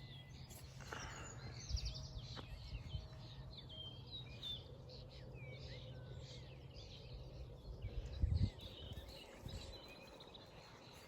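A flock of small birds chirping, many short overlapping calls and quick whistled notes. A low rumble runs underneath, with a couple of low thumps about eight seconds in.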